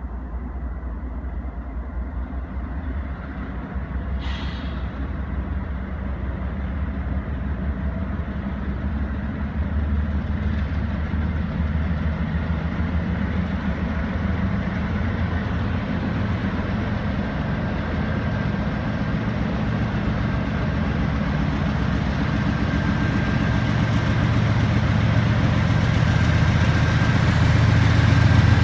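Norfolk Southern freight train led by a GE Dash 9-40CW diesel-electric locomotive approaching under power: a deep diesel drone that grows steadily louder as it nears, with a thin high whine joining near the end.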